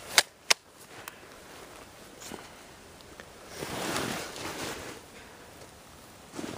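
Two sharp mechanical clicks from an airsoft gun, a third of a second apart, as it is cocked, with a fainter click just after. A soft rustling noise swells and fades about four seconds in.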